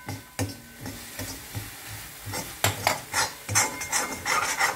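A metal spoon scraping and stirring onions and spices around a metal kadai: a run of short rasping strokes, about three a second and louder in the second half.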